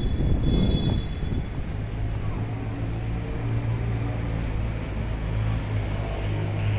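City street background noise: a low rumble of traffic, with a steady low hum setting in about two seconds in.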